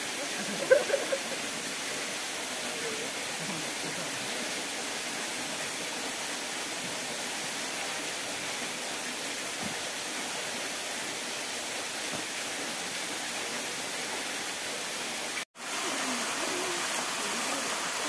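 Steady rush of water from a small forest waterfall and its rocky stream. A brief clatter comes about a second in, and the sound drops out for a moment near the end.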